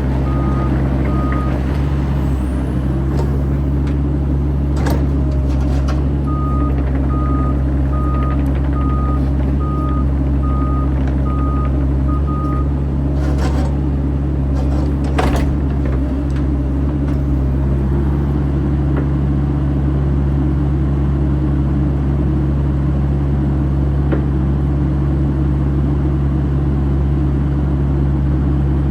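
Bobcat E85 crawler excavator's diesel engine running steadily under a warning alarm beeping evenly, about one beep a second, briefly near the start and again for about six seconds from six seconds in. A few sharp metal clanks come around the middle.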